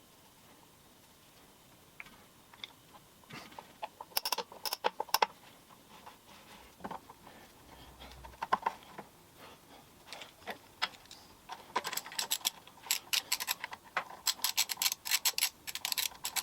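Small metal parts of a drill press clinking and rattling as they are handled, in irregular runs of sharp metallic clicks, with a busy spell about four seconds in and a longer, denser one toward the end.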